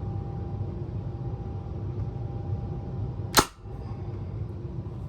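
A single shot from a Tippmann M-4 Carbine air-powered launcher running on a 900 psi HPA tank: one sharp crack about three and a half seconds in, over a steady low hum.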